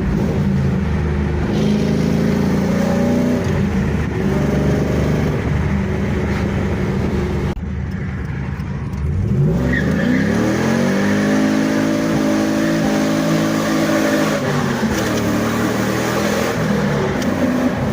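Pontiac Trans Am's V8 running after being jump-started on a new alternator. It is revved up about ten seconds in, held there for a few seconds, then let fall back to idle.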